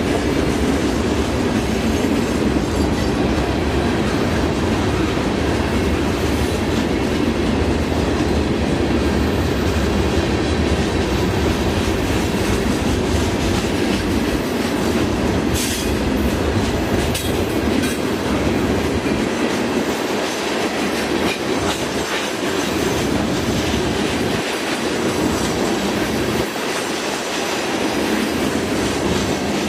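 Loaded freight train rolling along the track: a steady rumble of wheels on rail with clickety-clack. The deep rumble thins out in patches in the second half, and a few brief sharp clanks or squeals come around the middle.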